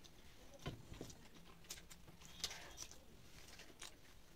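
Faint eating sounds: a few scattered soft clicks and smacks of chewing and of fingers mixing rice on a plate.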